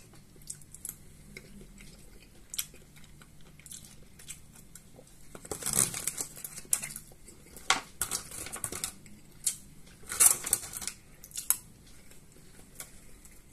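Metal spoon scraping and clinking against a thin plastic tub as the last of the Olivier salad is scooped out, in several short bursts, with chewing between them.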